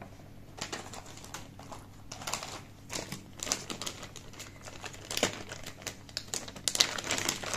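Clear plastic bag crinkling and rustling as it is handled, a run of irregular crackles that gets busier near the end.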